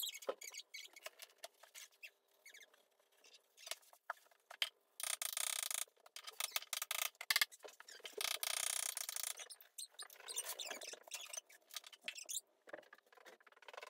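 Kitchen cabinet panels being pried and pulled apart by hand: two long scraping, creaking stretches of about a second each, around five and eight seconds in, amid scattered knocks and clicks of wood and tools.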